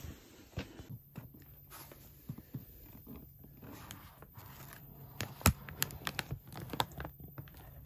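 Scattered small clicks, scrapes and crinkles of handling, with one sharper click about five and a half seconds in. A faint steady low hum starts about a second in and continues underneath.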